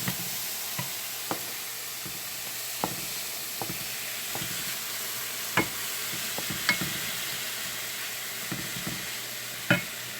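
Chopped mushrooms, pepper and ham sizzling steadily in a frying pan, with a few sharp clicks of a utensil against the pan as they are stirred, the loudest near the end.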